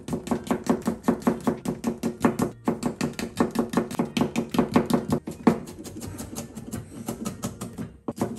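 Kitchen knife chopping garlic cloves on a plastic cutting board: a fast, even run of knife taps, about five a second, that turns lighter about five and a half seconds in.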